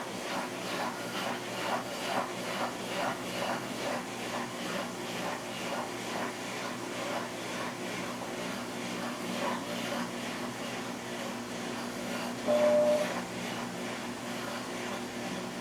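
Brastemp 14 kg washing machine running with a steady hum and a rhythmic swishing of about three strokes a second that fades out around the middle. A short single-tone beep sounds near the end.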